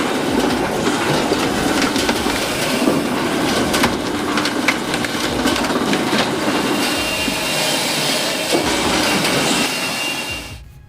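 Electric wood chipper shredding branches: a dense crunching grind full of sharp cracks and snaps, stopping suddenly near the end.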